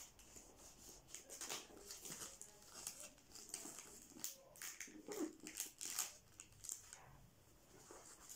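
Clear plastic album sleeves rustling and crinkling as the pages are handled and pressed flat: a faint, irregular series of short crackles.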